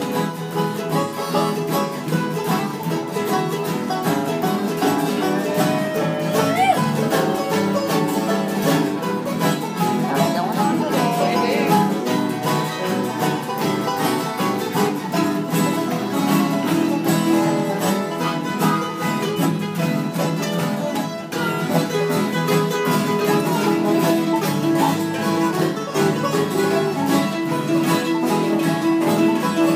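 Several acoustic guitars strumming together in a country instrumental break with no singing, a harmonica playing lead over them and holding long notes near the end.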